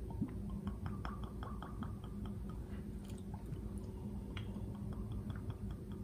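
Grand Marnier trickling from its bottle into a metal measuring spoon: faint small drips and ticks, several a second, over a low steady hum.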